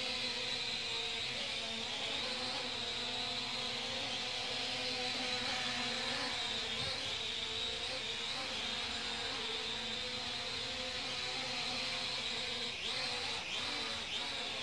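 Small propeller drone in flight, giving a steady insect-like buzzing whine from its spinning propellers, the pitch wavering slightly and swooping briefly near the end as it manoeuvres.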